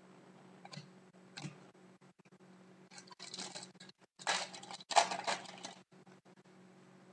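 Trading cards being handled: a couple of light taps, then about three seconds of paper-card rustling and sliding as the cards are shuffled through by hand.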